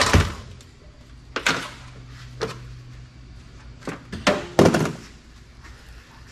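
A series of thunks and knocks as hard computer parts are handled and set down, about six over the first five seconds. The loudest come right at the start and around four and a half seconds in.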